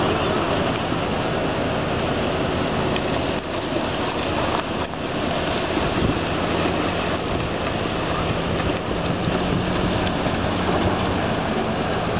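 Strong wind rushing steadily over the microphone, with a faint low hum underneath.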